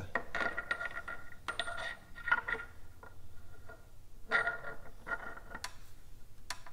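Light metallic clicking and clinking, with a brief ring after the clicks, in several clusters: steel parts of a 9.9 hp Evinrude outboard's lower unit knocking together as the propeller shaft and gear are worked by hand into the gearcase.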